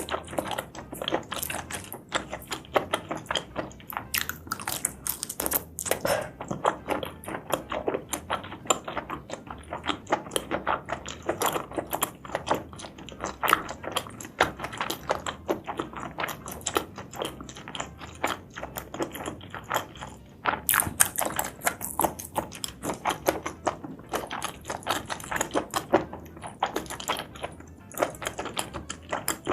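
Close-miked mukbang eating sounds: chewing and biting through spicy seafood and mushrooms, a continuous run of quick mouth clicks and smacks, several a second.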